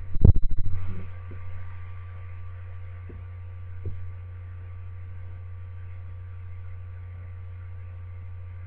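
Steady electrical mains hum, a constant low drone with faint higher steady tones, with a short loud low buzz in the first second.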